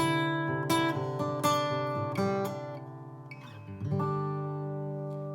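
Martin OM-28 Reimagined steel-string acoustic guitar strummed without a capo: several chords in the first two and a half seconds, then a last chord about four seconds in, left to ring out and fade.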